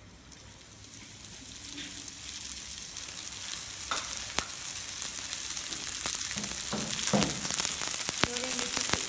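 Dried anchovies (ikan bilis) frying in hot oil in a non-stick frying pan, sizzling more and more loudly after they are tipped in, with sharp crackling pops. A spatula stirs them.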